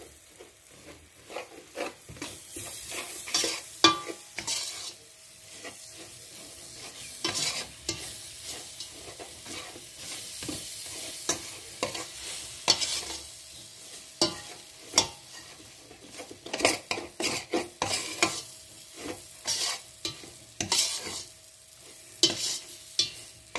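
A spoon stirring semolina as it roasts in margarine in a stainless steel pot, with irregular scrapes and clicks of the spoon against the pot's side and bottom and sizzling from the hot fat.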